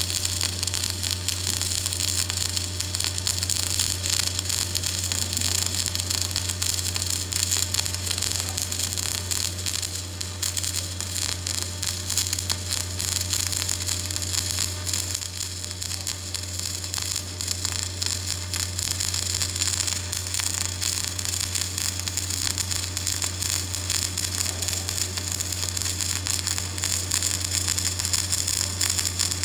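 Flux-cored arc welding a root pass: the arc crackles and sizzles steadily, with a steady low hum underneath.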